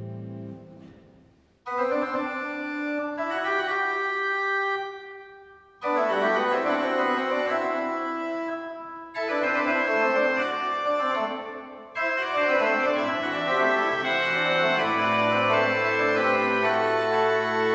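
Pipe organ improvisation: an opening chord dies away into the room's reverberation. Full chords then come in as phrases every three to four seconds, with brief gaps between them. A low pedal note sounds under the last few seconds.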